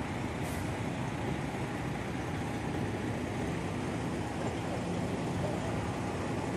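Steady low rumble of idling vehicle engines, with a brief hiss about half a second in.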